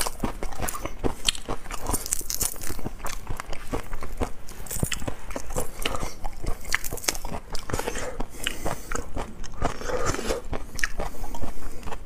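Shells of cooked shrimp cracking and being pulled off by hand close to the microphone: a quick, irregular run of sharp crackling clicks, mixed with some chewing.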